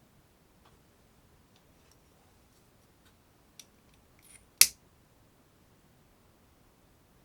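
A few faint ticks and a brief rustle, then one short, sharp click about four and a half seconds in, much louder than the rest.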